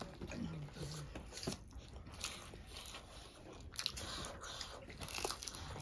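Close-up eating sounds: chewing and crunchy bites, with scattered small clicks and crackles.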